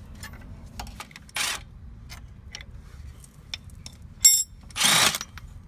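Metal tools and hardware clicking and clinking against the strut's lower mounting bracket as the bottom strut bolt is worked on, with one sharp ringing metallic clink about four seconds in and two short noises, one near the start and one near the end.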